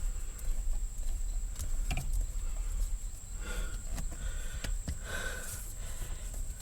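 Scattered light clicks and knocks of hand tools and shifter parts being handled, with a few short squeaks about halfway and again near the end, over a steady faint high whine.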